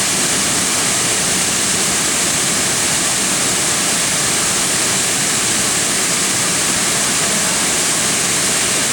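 Waterfall in full monsoon flow: a loud, steady rush of falling water.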